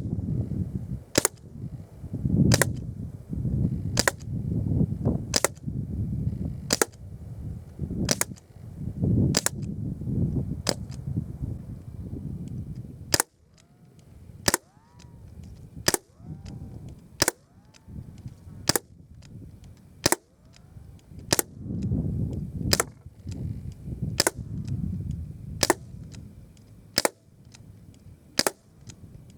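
Repeated shots from a BB air gun, sharp cracks about one a second, coming quicker for a stretch in the middle.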